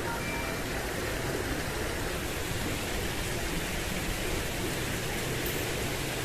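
Steady rushing, hissing noise with no distinct events, much like running or splashing water.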